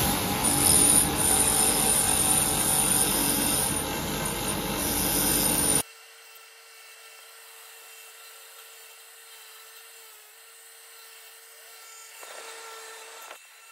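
Bench grinder running as metal brake pad shims are pressed against it to clean them, a loud steady grinding. It cuts off abruptly about six seconds in, leaving only a faint steady hum.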